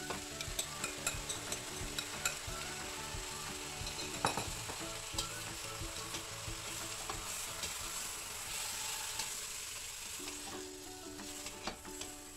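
Beef sizzling in oil in a stainless steel pressure cooker pot as curry sauce is poured in and stirred, with a steady frying hiss and the spoon repeatedly clicking and scraping against the pot, including one louder knock about four seconds in.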